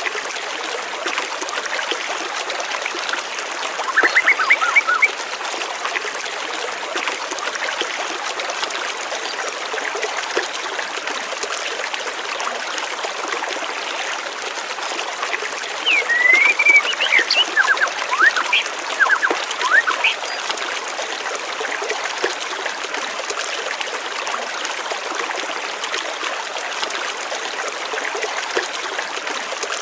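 Water flowing steadily in a small stream, with birds chirping in two short bouts, once about four seconds in and again in a longer flurry of rising and falling chirps past the middle.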